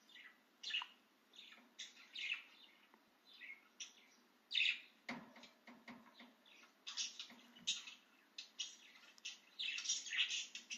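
Budgerigar chattering and chirping: a steady run of short, high chirps and warbles, busiest near the end.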